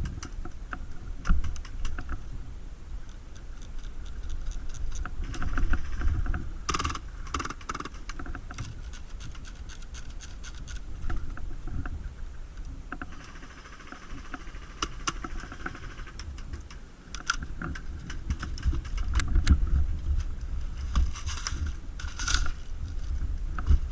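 Airsoft guns firing in several rapid bursts of small sharp clicks, over a low rumble of wind and handling on the microphone.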